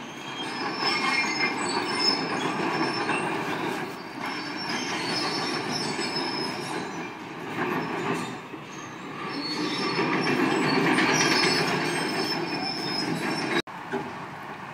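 Demolition excavator working: engine rumble mixed with high-pitched metallic squealing and grinding that swells and fades, then cuts off abruptly near the end.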